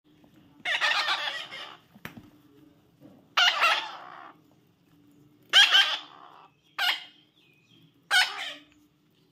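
Young parrot giving five loud, harsh squawking calls, each about half a second to a second long, spaced a second or two apart.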